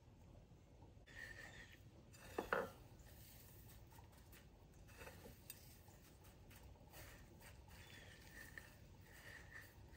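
Near silence with faint handling sounds as a stuffed chicken breast is dredged through egg and pressed into breadcrumbs on a plate. There is one brief knock against the dishes about two and a half seconds in.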